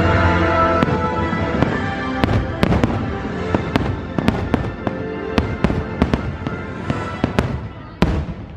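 Fireworks shells bursting in rapid succession, a dense run of sharp cracks and bangs over show music. The music holds a sustained chord for the first couple of seconds, then drops back under the bursts, and the whole thing grows quieter toward the end.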